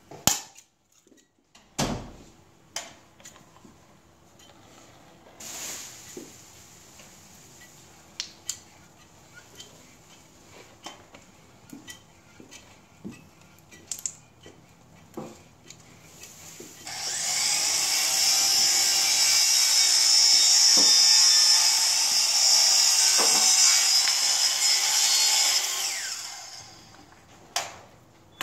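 Scattered clicks and knocks from a caulking gun and hand tools as construction adhesive is run onto a stair tread. Starting about halfway, a loud steady hiss lasts about nine seconds, then stops.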